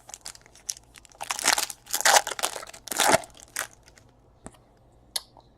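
Foil trading-card pack wrapper crinkling and being torn open by hand, a series of crackly rustles over a couple of seconds, then a few light clicks.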